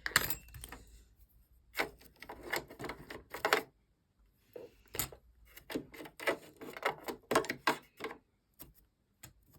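Irregular clicks and taps of small cleaning tools handled against the metal and plastic parts of a sewing machine while lint is picked and brushed out, coming in bursts and pausing near the end.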